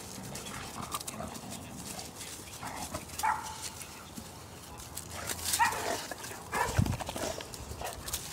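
Cane Corso dogs, a puppy and an adult female, meeting: a few brief dog vocalizations over scuffling movement, with a heavy thump about seven seconds in.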